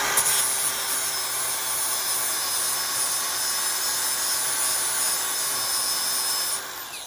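Angle grinder grinding down a weld bead on thin steel: a steady loud grinding that stops about six and a half seconds in as the wheel winds down. The weld is being ground flush to take out a dark spot and line.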